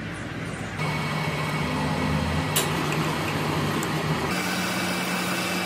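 Metal lathe running with a steady low hum while machining a steel axle shaft. The running sound changes abruptly about a second in and again near four seconds, with one short tick in between.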